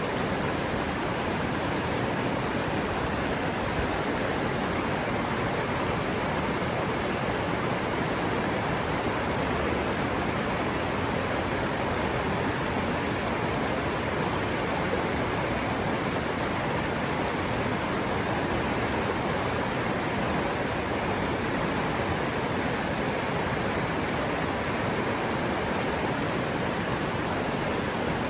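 River water running steadily over rocks, a constant even rush with no change in level.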